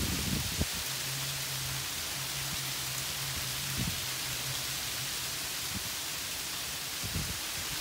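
Freezing rain falling steadily on shrubs, brickwork and a concrete walkway: an even, unbroken hiss.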